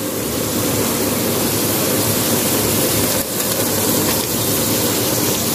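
Pieces of liver (kaleji) frying in hot onion-and-spice masala in an aluminium karahi, just after they go in: a steady sizzling hiss.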